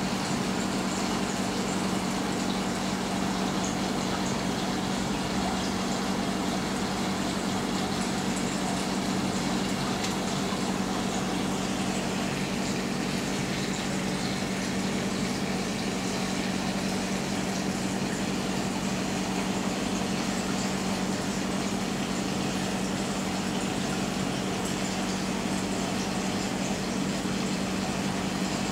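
Aquarium pumps and filtration running: a steady hum over a constant wash of moving water.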